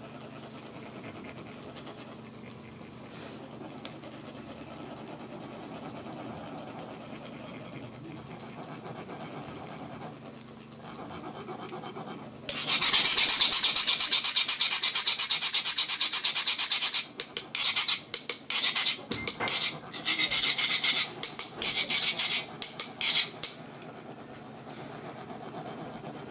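Metal sand-funnel cone (chak-pur) rasped with a metal rod, a loud grating buzz that shakes the coloured sand out in a thin stream. It starts suddenly about halfway through, runs steadily for about four seconds, then goes on in a series of short strokes.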